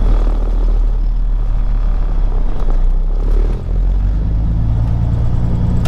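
Peterbilt 379 semi truck's diesel engine running as the truck drives slowly, heard from inside the cab as a steady low rumble. The sound dips briefly about three and a half seconds in, then the engine hum comes back stronger.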